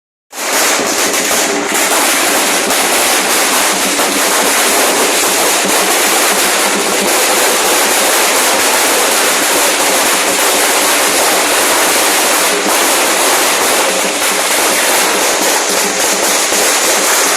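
A long string of firecrackers going off in a continuous, dense crackle of rapid bangs. It starts abruptly just after the beginning and keeps up without a break.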